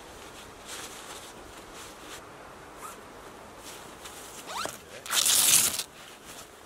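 Camping gear being packed: fabric rustling, then a zip pulled once, briefly and loudly, about five seconds in.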